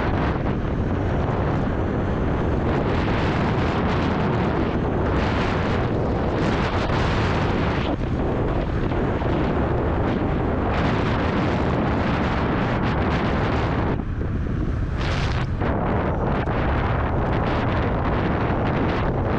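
Wind rushing over the camera microphone of a riding e-scooter: steady, loud buffeting that dips briefly about fourteen seconds in.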